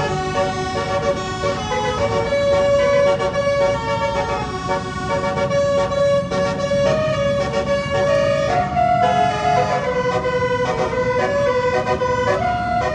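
A basuri telolet horn playing a tune: several horn tones sound together, holding and stepping from note to note without a break.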